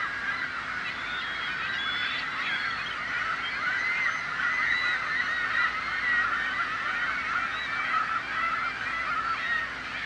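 A flock of gulls calling: many short, overlapping calls at once, a steady chorus that swells slightly in the middle.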